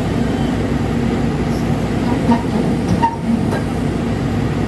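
Heavy diesel engine running steadily, with two short knocks about two and three seconds in.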